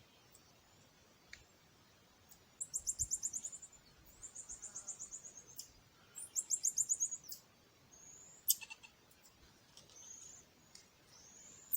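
Common marmosets calling: three very high-pitched rapid trills of about a second each, then a few short high whistles, with a single sharp click just past the middle.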